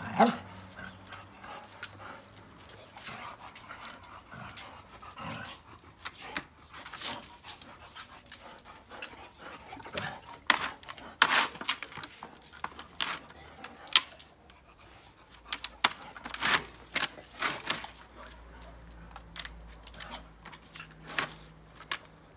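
Standard schnauzer sniffing at a cat and panting in short, irregular puffs.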